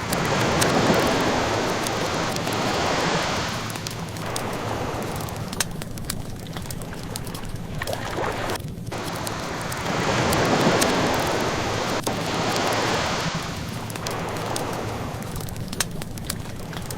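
Ocean waves washing onto shore in two slow swells, one just after the start and one about ten seconds in, each rising and fading over about four seconds. Throughout, a wood fire crackles with small sharp pops.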